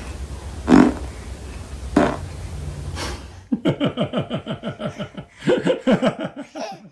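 Two short noisy bursts about one and two seconds in, then a baby laughing in a rapid string of short giggling laughs from about halfway through.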